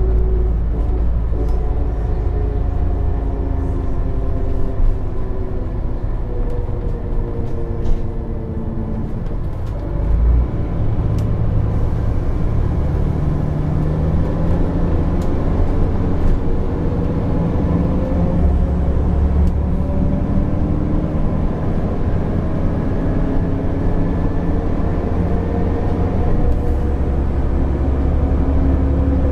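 Alexander ALX400 DAF DB250 double-decker bus under way, its engine and drivetrain heard from the lower deck as a low rumble with a whine. The pitch falls over the first ten seconds as the bus slows, then climbs steadily as it speeds up again.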